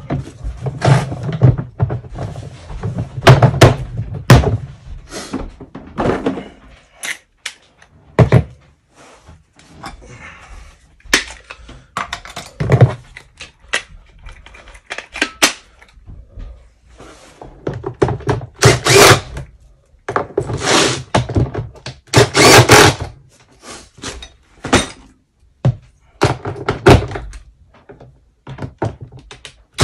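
Knocks and thunks of the grey plastic drum housing of a Ridgid K9-204 drain cleaner being handled and seated, then a cordless drill running in several short bursts of about a second each, driving the cover screws in.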